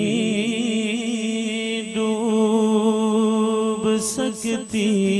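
A man singing a naat unaccompanied into a microphone, drawing out a long wavering note. About four seconds in he breaks into a few quick syllables, then holds the next note.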